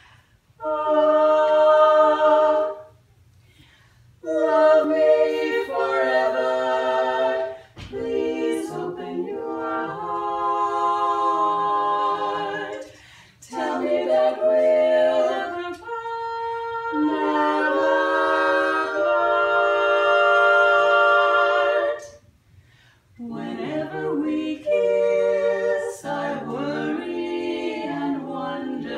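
Women's vocal quartet singing a cappella, four voices holding chords together in long phrases, with a short break about three seconds in and another near twenty-two seconds.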